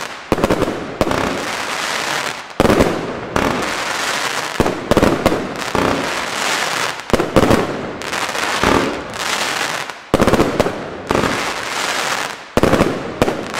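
Xplode Double Deck Red fan-shaped firework cake firing, a sharp launch bang every second or so, with a dense crackling haze from the bursting stars in between.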